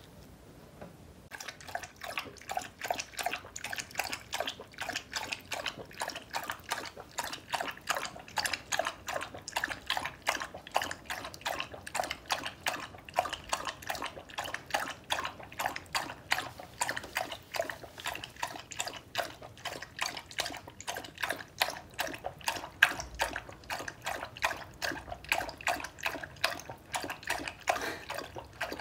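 A beagle lapping water from a bowl, a steady run of wet laps at about four a second that starts about a second in and keeps going without a break.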